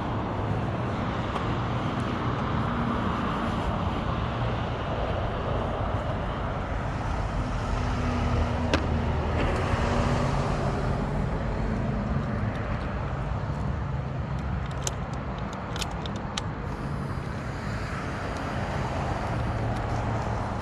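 Yamaha R1's crossplane-crank inline-four running steadily at low revs. A few sharp clicks come through about halfway and again about three-quarters of the way in.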